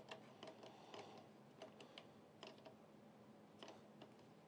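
Faint, irregular small clicks of a screwdriver turning the spring-loaded mounting screws of a CPU tower cooler, a few clicks a second over quiet room tone.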